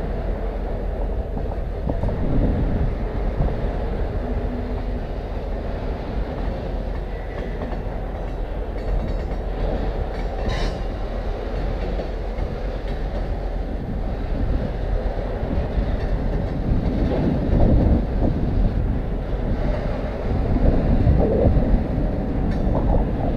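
Freight train of lumber-loaded flatcars rolling steadily past: a continuous rumble of steel wheels on rail with a clickety-clack of wheels over rail joints.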